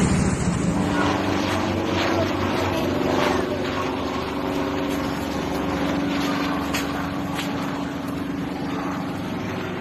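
An engine running steadily with an even, low hum, easing off a little toward the end.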